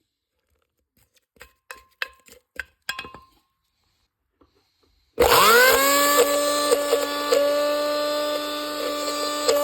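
A low-priced countertop blender being handled, with a few clicks and knocks, then switched on about five seconds in. Its motor spins up within a fraction of a second to a steady high whine, with small knocks from the carrot and orange inside.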